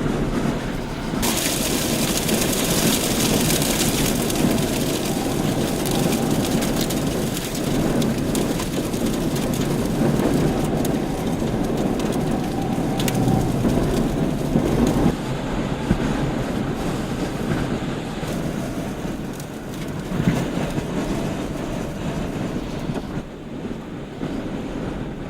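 Strong wind blowing hard against the microphone as a dense, steady rushing noise. It swells about a second in and eases somewhat after about fifteen seconds.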